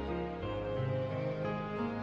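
Background music with sustained chords that change about half a second in.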